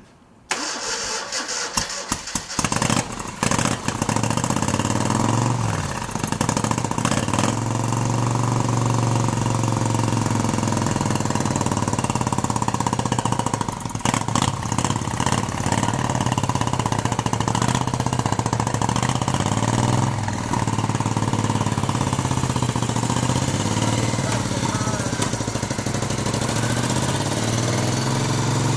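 1971 Moto Guzzi Ambassador's air-cooled V-twin, freshly rebuilt with a big-bore conversion to about 950 cc, starting for the first time: it cranks and catches in the first few seconds, then keeps running with the revs rising and falling and dipping briefly a couple of times.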